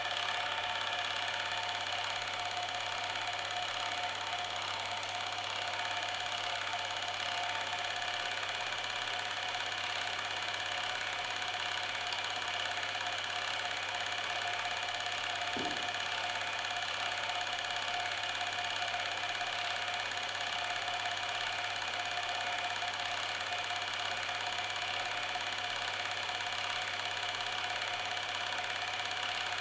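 Steady mechanical running sound, a whirring drone with several fixed tones that does not change; a short low thud about halfway through.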